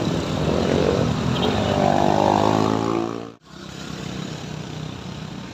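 A vehicle engine labouring up a steep hill, its pitch rising over the first three seconds. The sound breaks off abruptly about three and a half seconds in, and a quieter, steadier engine sound carries on after it.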